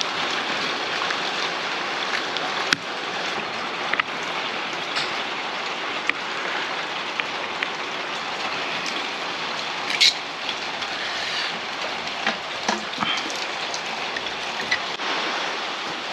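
A steady rushing hiss, like rain or running water, with a few small sharp clicks and taps of hand tools and wiring being worked on a light fitting.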